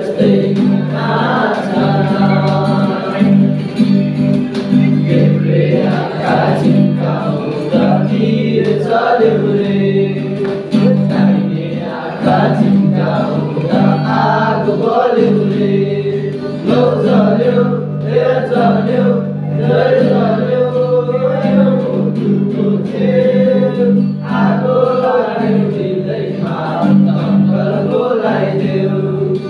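A group of young male voices singing together to a strummed acoustic guitar.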